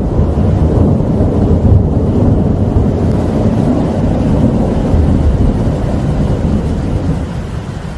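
Deep, rolling thunder rumbling over rain, dying down near the end.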